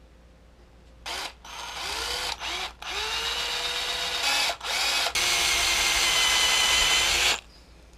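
Cordless drill boring pinholes into a wooden lure body: several short runs, the motor whining up to speed each time, then a steady run of about two seconds that cuts off suddenly.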